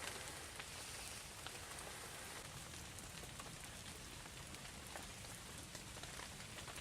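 Faint, steady rain-like hiss with scattered small ticks.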